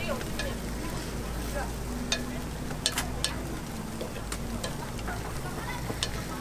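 Chrysanthemum bread batter sizzling in a hot metal griddle mold while a metal pick scrapes and pries the cakes out, with several sharp clicks of the pick against the mold.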